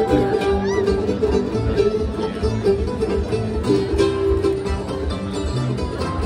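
Live bluegrass string band playing, with acoustic guitars and upright bass keeping a steady rhythm under a sliding lead melody.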